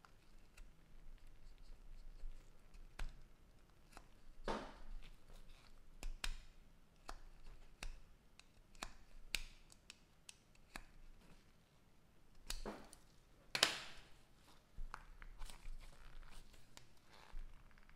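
Irregular light clicks, taps and short scraping strokes of hands working with small tools and parts, with the loudest scrape about three-quarters of the way in.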